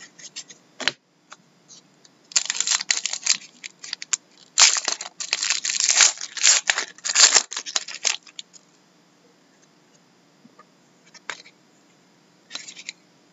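A trading card pack wrapper being torn open and crinkled by hand, in two spells of crackling tearing. Near the end come a few light clicks of the cards being handled.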